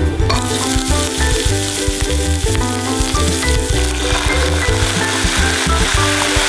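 Oil sizzling in a hot frying pan with sliced Korean leek and garlic. About four seconds in, soy sauce and water go into the pan and the sizzle grows louder. Background music with a steady beat plays throughout.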